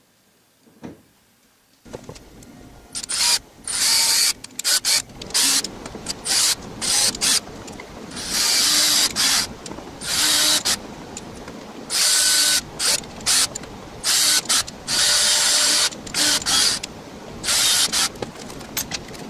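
Cordless drill running in a dozen or so short bursts into wood, each from a fraction of a second to about a second and a half long, starting a couple of seconds in.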